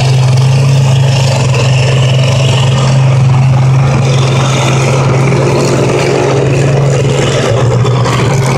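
Combine harvester's diesel engine running steadily and loud, with a constant low hum.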